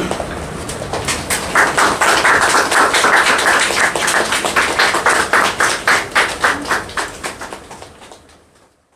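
A group clapping hands in a steady rhythm, about three claps a second, fading out near the end.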